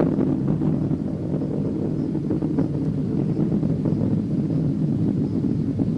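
Space Shuttle Discovery's rocket engines and solid rocket boosters during ascent, heard as a steady low rumble with faint crackle.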